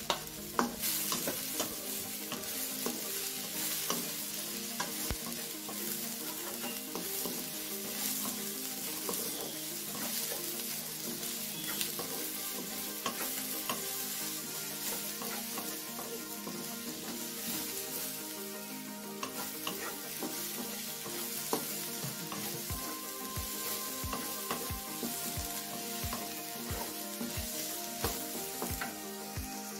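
Chopped chilies, shallots, garlic and spices sizzling in hot oil in a wok while a spatula stirs and scrapes them around the pan. A run of soft knocks comes in the last several seconds.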